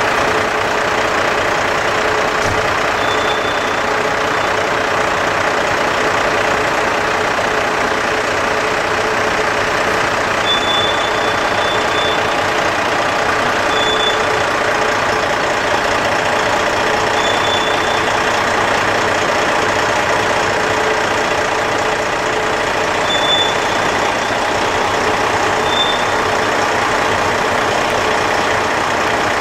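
Bombardier TRAXX diesel-electric locomotive running under load as it shunts a train of tank wagons, a steady engine noise. Short high squeals cut through about six times.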